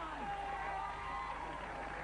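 Men yelling and whooping on stage, one long held yell in the middle, over a live studio audience's cheering and applause.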